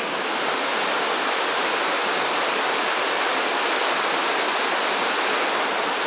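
Fast-flowing forest river rushing over rocks and rapids: a loud, steady rush of water.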